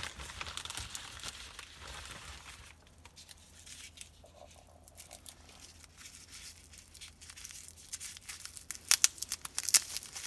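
Plastic bubble wrap crinkling and sticky tape being peeled and torn off as a LEGO minifigure is unwrapped by hand, with a run of sharp, loud crackles near the end.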